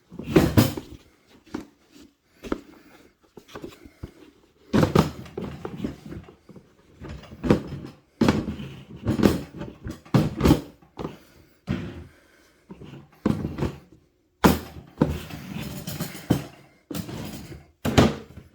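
Pieces of a Craftsman 3-piece stackable rolling toolbox being handled and stacked: irregular thunks, knocks and clatter with short pauses between.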